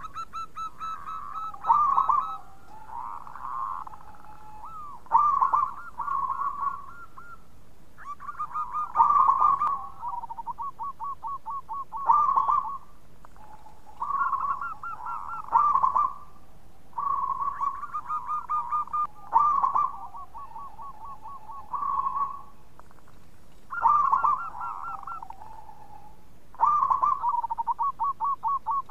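Zebra dove (perkutut) cooing its song over and over: short phrases of quick, rolling staccato coos, one every two to three seconds.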